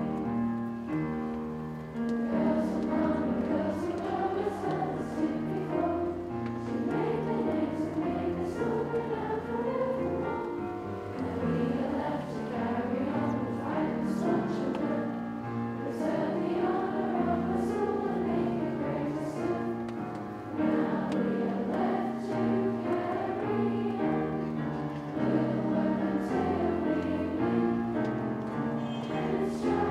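A large group of schoolgirls singing the school song together, with piano accompaniment.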